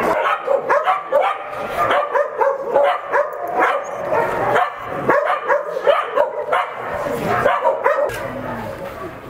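A chorus of many shelter dogs barking and yipping at once, short overlapping barks several a second, a little fainter near the end.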